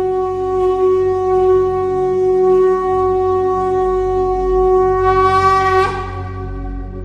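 A conch shell (shankha) blown in one long, steady note that wavers and fades near the end.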